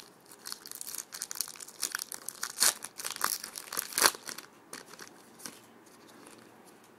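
Foil wrapper of a 2009 Topps Platinum card pack crinkling and tearing as it is handled and ripped open, a quick run of crackles with two louder rips about three and four seconds in.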